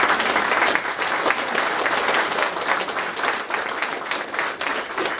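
A crowd applauding: many hands clapping together in a dense patter that slowly eases off toward the end.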